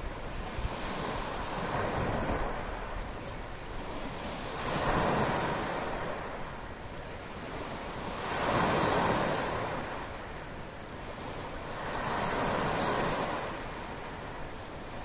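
Small waves breaking on a sandy beach: a steady wash of surf that swells and fades four times, every three to four seconds, with some wind on the microphone.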